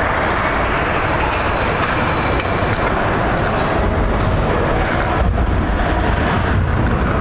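Ice hockey game heard in a rink: a steady, loud, noisy din with a few sharp clicks and knocks of sticks, skates or puck scattered through it.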